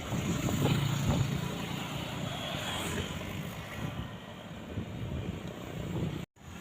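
A large road vehicle, likely a bus, driving past with engine and tyre noise, loudest in the first second or so and then easing off. The sound cuts out completely for a moment near the end.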